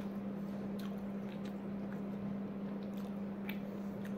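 A person chewing a mouthful of roti, with small wet mouth clicks scattered through, over a steady low hum.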